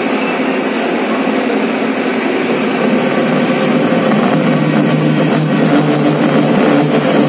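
Metal lathe running, its single-point tool cutting a spinning metal workpiece: a steady machine hum. Electronic music with a beat comes in over it in the second half.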